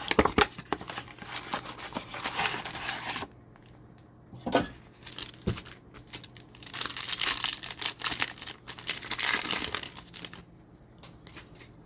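Trading-card packaging being torn open, with plastic wrappers crinkling: two spells of tearing and rustling, with a few clicks between them.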